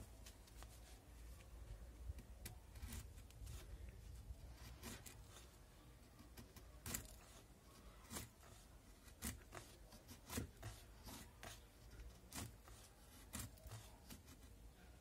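Faint scraping strokes of a Ganzo 7453 folding knife's blade shaving curls off a hard holm-oak stick, a few light ones at first and then about one stroke a second.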